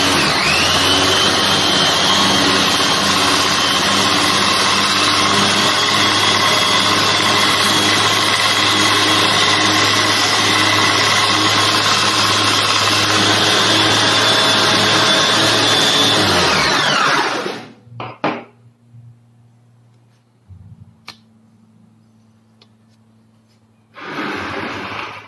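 Homemade belt sander driven by a Bosch GWS 060 angle grinder running a 4x20 P120 belt: it runs up to speed and keeps up a loud, steady motor whine with belt hiss. About 16 seconds in it is switched off and its pitch falls as it winds down. A few clicks follow, and a short burst of noise comes near the end.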